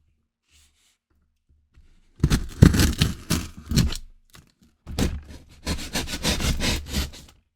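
Cardboard shipping box and its tape being cut, torn and scraped open, in two scratchy bursts of handling, the first starting about two seconds in and the second about five seconds in.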